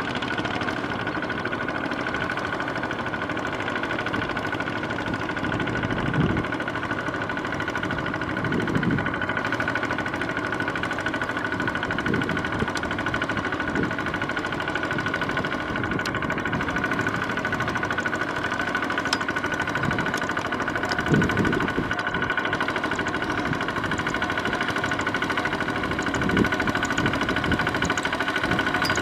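Single-cylinder diesel engine of a two-wheel walking tractor running steadily under load as its cage wheels churn through flooded paddy mud, with a steady high whine over the engine note. Several brief louder surges break in, the strongest about two-thirds of the way through.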